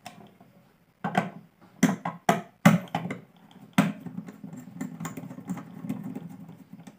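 Sharp clicks and taps of a screwdriver and hands on a plastic switch-and-socket board as a wire is fastened into a terminal. From about four seconds in, a low rubbing noise follows as the terminal screw is turned.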